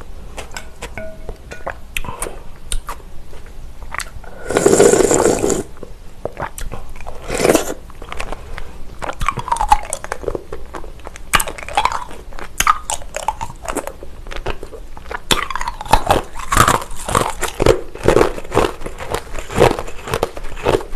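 Close-miked eating sounds: a person slurping cold soybean-milk soup off a spoon, with two loud slurps about five and seven and a half seconds in, then a long run of crisp crunching and chewing.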